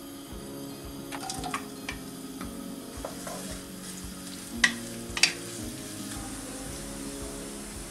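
Sliced onions frying in hot oil in a wok, stirred with a wooden spatula, with a few clicks early on and two sharp knocks of the spatula against the pan about halfway through.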